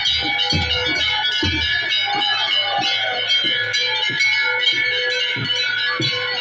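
Music with a steady drumbeat under high, ringing, bell-like tones.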